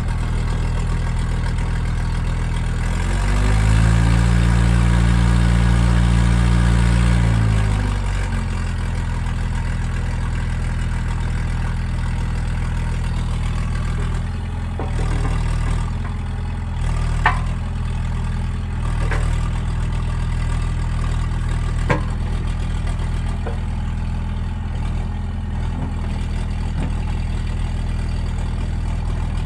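Case CX75SR compact excavator's diesel engine running, rising in pitch and louder for several seconds early on as it works under load, then settling to a steady run. A few sharp knocks come through around the middle.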